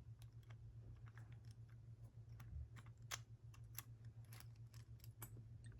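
Faint, scattered small metallic clicks and taps as a 3/32 Allen key is worked into a Paclock UCS-1A padlock to remove its core, over a steady low hum.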